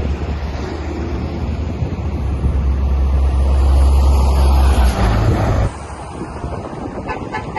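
Low, steady rumble of road traffic on a highway, growing louder and then cutting off suddenly about five and a half seconds in, leaving a quieter background of traffic and outdoor noise.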